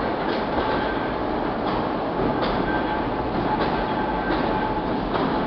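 Battery-electric narrow-gauge locomotive and passenger car running away along the track in a tunnel: a steady rolling rumble with a faint steady whine and irregular sharp clicks, echoing off the tunnel walls.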